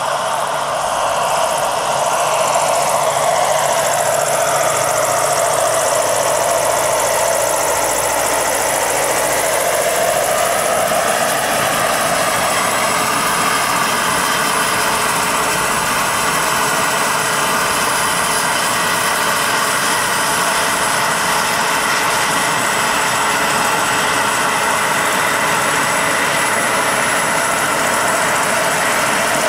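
Turbine engine and spinning rotor of a giant-scale RC AH-64 Apache model helicopter, a steady whine with rotor noise. The pitch shifts during the first dozen seconds as the helicopter comes down to land. It then runs steadily on the ground with the rotor turning.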